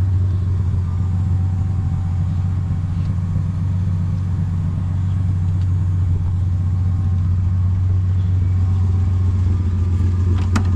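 Nissan RB30 3.0-litre straight-six in a VL Commodore idling with a steady, even low hum, purring smoothly after a drive with its freshly cleaned injectors no longer leaking. A short click near the end.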